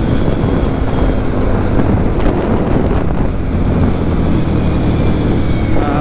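Kawasaki KFX 700 V-Force quad's V-twin engine, fitted with a Thunder aftermarket exhaust, running steadily while cruising, with wind rushing over the helmet microphone.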